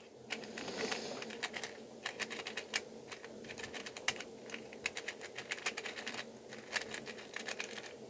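Small plastic keychain 2x2 puzzle cube being turned quickly by hand during a solve: a rapid, irregular run of light plastic clicks and clacks, several a second.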